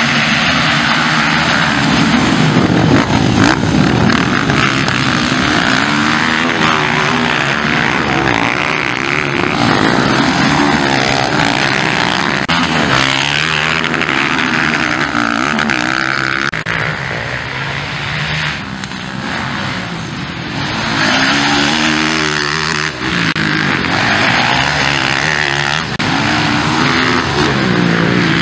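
Motocross bike engines racing, revving up and falling off over and over as the riders accelerate and shift, several bikes at once early on, then quieter for a few seconds past the middle.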